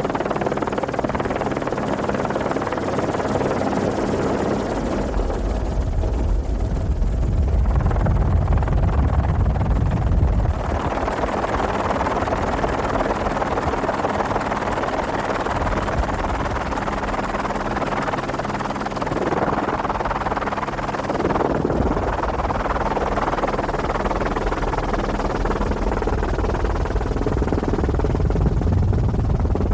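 Helicopter engine and rotor noise: a steady drone with a heavy low rumble that swells and eases a few times.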